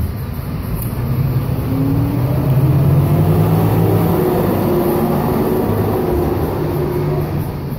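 Motor vehicle engine running close by, a low hum that grows louder over the first few seconds and fades near the end, as if passing or pulling away.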